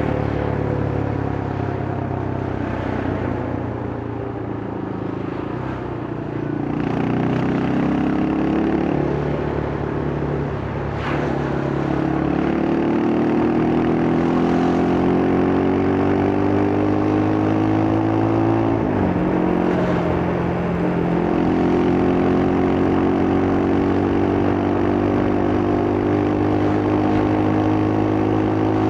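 Yamaha Scorpio's single-cylinder four-stroke engine and exhaust under way, the engine note climbing steadily as the bike accelerates. The pitch drops sharply twice, about a fifth and two-thirds of the way through, at gear changes, then climbs again.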